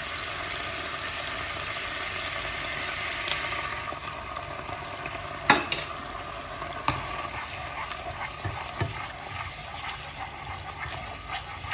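Butter, black pepper and meat sauce sizzling and bubbling in a non-stick kazan; the sizzle eases a little partway through. A few sharp knocks and scrapes come in the second half as a spatula stirs against the pot.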